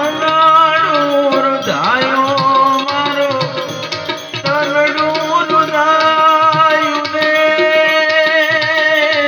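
Tabla playing a rhythm under a held, slightly wavering melody from an Indian banjo, in an instrumental passage of a devotional bhajan. The melody bends about two seconds in and pauses briefly near the middle.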